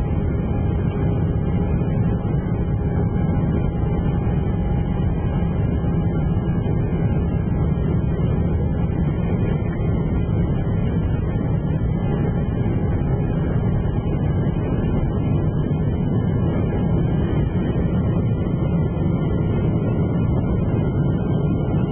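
Airliner cabin noise: a steady low rumble of jet engines and airflow, with a faint steady whine above it.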